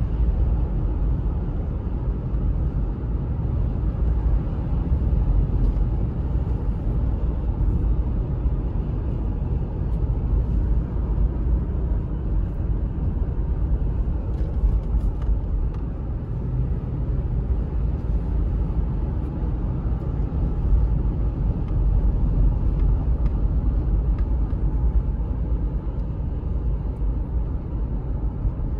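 Cabin noise of a 2007 Toyota 4Runner V8 cruising at about 50 mph: a steady low rumble of tyres, road and engine.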